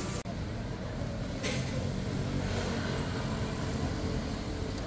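Outdoor city-street ambience: a steady low rumble of traffic, with motor vehicles running.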